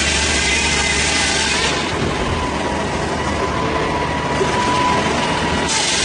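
Heavy wood-cutting machinery running steadily, a dense mechanical din with a faint steady whine; the high hiss drops away abruptly about two seconds in and returns just as suddenly near the end.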